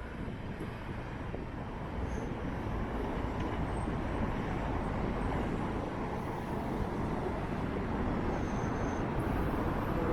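Strong wind buffeting the microphone: a steady low rushing noise that starts abruptly and grows slightly louder.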